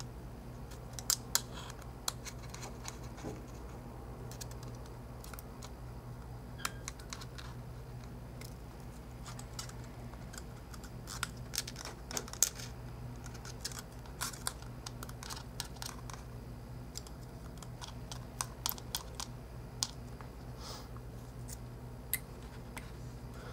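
Small Phillips screwdriver clicking against tiny screws and the metal frame as the side screws of an iPhone 4 are tightened: scattered sharp clicks, some in quick clusters, over a steady low hum.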